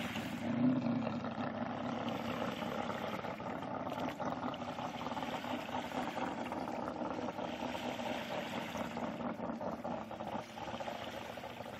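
Small waves lapping and splashing steadily against the water's edge or a hull.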